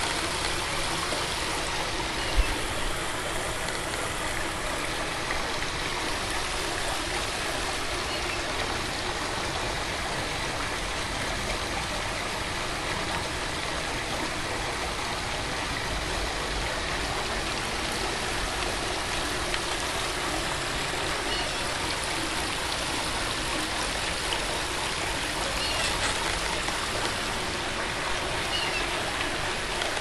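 Steady rushing of running water, like a stream or small waterfall, with a single sharp knock about two seconds in and a few faint short high chirps.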